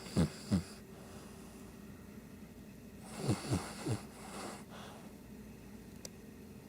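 Shih Tzu snorting in its sleep: two quick snorts at the start, then three more in a row about three seconds in, each falling in pitch, trailing off into breathy exhales. A faint tick about six seconds in.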